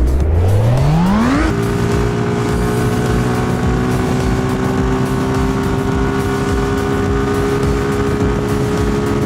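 Suzuki Gixxer SF motorcycle engine and exhaust pulling up through the revs, its pitch climbing until about a second and a half in, then holding a steady note at constant engine speed.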